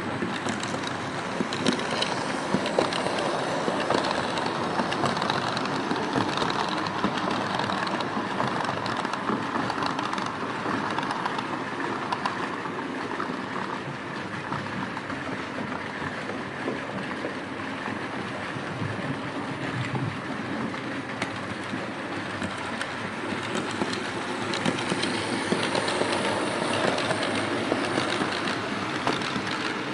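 Märklin H0 model freight train running on metal M-track: a continuous rattle and clatter of small wheels over the track, dipping a little in the middle and louder near the end as a string of tank wagons passes close by.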